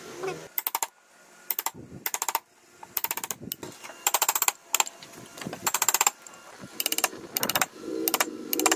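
Rapid mechanical clicking in about a dozen short bursts, each a quick even run of sharp clicks.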